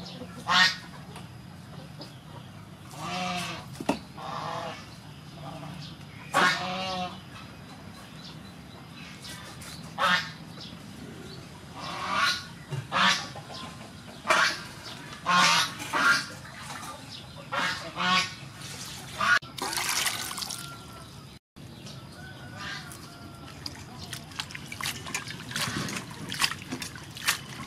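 Farmyard fowl calling: short, honking, pitched calls every few seconds, the loudest about half a second in. Near the end, water splashing as lettuce is washed by hand in a steel bowl.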